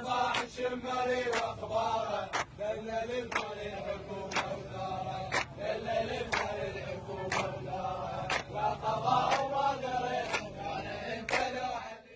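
A group of men chanting a protest chant in unison, clapping together on a steady beat of about one clap a second.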